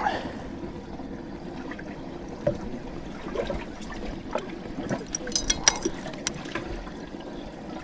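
Water trickling and splashing steadily, with a quick run of small clicks and knocks a little past the middle.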